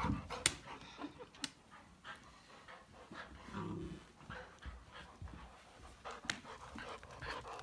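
Golden retriever puppy panting, with a few sharp clicks scattered through.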